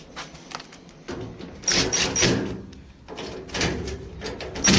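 Hands handling screws, tools and metal parts: clattering, knocking and scraping in two bursts, with a few brief high squeaks.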